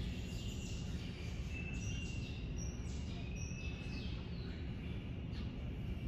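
Small birds chirping, with short high chirps, quick falling notes and a few thin held whistles scattered through, over a steady low rumble of background noise.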